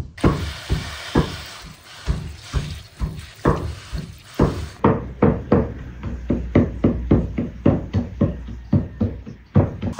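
Running water splashing over fresh herbs rinsed by hand in a metal colander. Then, about five seconds in, a heavy cleaver chops raw meat on a wooden block in quick, even strokes, about four a second.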